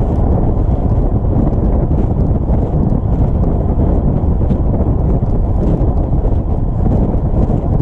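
Loud, steady wind buffeting on the microphone, a dense low rumble, with faint scattered ticks above it.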